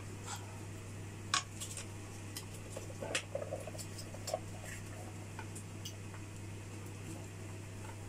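Scattered light clicks and crinkles from a plastic spaghetti-sauce pouch being squeezed out over a pot, over a steady low hum.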